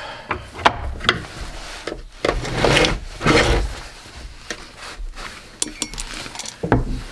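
A salvaged mechanism being forced apart by hand: irregular cracks, clicks and knocks with longer scraping and rubbing in the middle, and a brief high squeak near the end.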